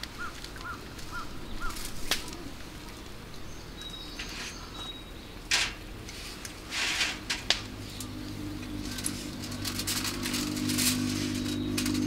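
Small birds chirping, with a short run of quick repeated chirps at the start and a thin high whistle a few seconds in, over the occasional clink and knock of cups and dishes on a camp table. A low steady hum comes in about two-thirds of the way through.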